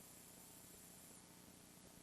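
Near silence: a faint steady hiss, with a faint high whine that stops a little past halfway.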